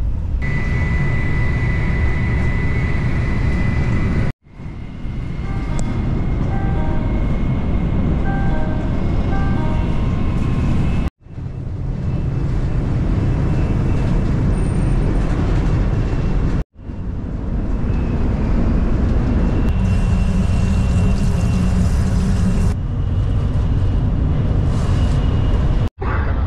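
Shinkansen bullet train running at speed, heard from inside the cabin: a steady low rumble and hum, cut off abruptly several times. Between about five and ten seconds a short run of high notes at different pitches sounds over the rumble.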